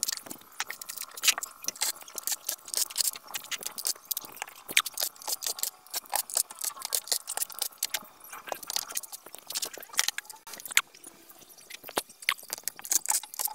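Cordless drill-driver backing screws out of a flat-screen TV's plastic back cover, with a steady motor whine for the first eight seconds or so, amid many sharp clicks and rattles of screws and plastic panels being handled.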